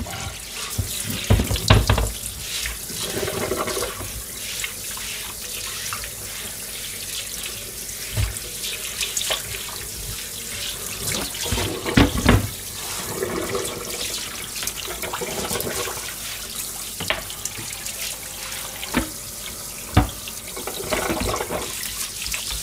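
Kitchen tap running into a stainless steel sink while bleached plastic cutting boards are rinsed and scrubbed under the stream. There are several sharp knocks in between, the loudest about 12 seconds in.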